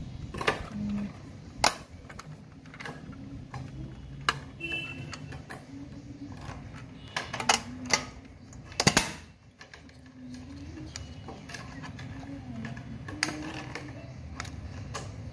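Clicks and clacks of a tin pencil box being handled: its metal lids snap open and shut and the case knocks in the hands. There are about half a dozen sharp snaps, with the loudest, a double clack, about nine seconds in.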